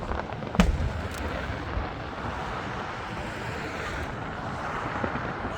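Fireworks: a sharp bang about half a second in and a weaker one a moment later. After that comes a steady rushing hiss with no further bangs.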